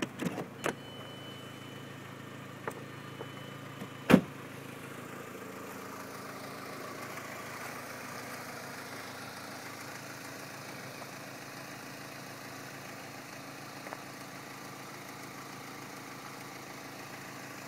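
Audi A4 engine idling steadily, with a few sharp clicks in the first second and one loud sharp knock about four seconds in.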